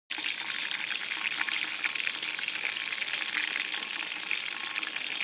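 Food deep-frying in hot oil: a steady sizzle full of fine crackles.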